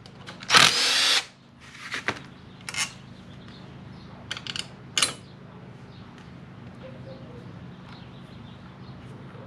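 Cordless drill-driver spinning for under a second as it backs an 8 mm bolt out of the scooter's transmission case cover. A few short clicks follow as the metal bolts are handled and set down.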